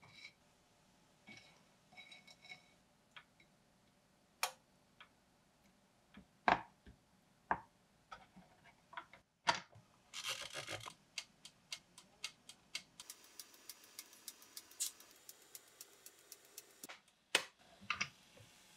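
Small electric waffle maker being handled: light taps and knocks of a pastry brush and utensils on its plates, a short hiss about ten seconds in, then a rapid run of ticking clicks for about four seconds as its timer dial is set, over a faint steady hiss. Two sharper knocks from the lid near the end.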